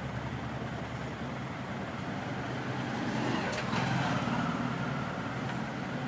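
Steady background road-traffic noise, swelling between about three and four and a half seconds in as a vehicle goes by.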